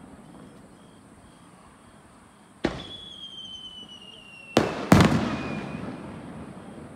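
Aerial firework shells bursting: one sharp bang, a high whistle that falls slightly in pitch, then two more bangs close together, the last the loudest, with an echoing rumble dying away.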